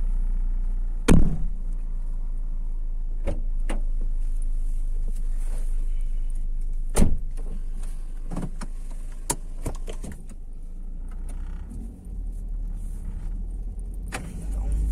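Ford Focus mk3 on the move, a steady low rumble from engine and road heard from inside the cabin, broken by a scattering of sharp knocks and rattles; the loudest comes about a second in, with another a few seconds later.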